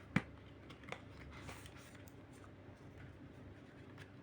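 Two light clicks, a sharper one just after the start and a softer one about a second in, over faint room noise: a card and its packaging being handled.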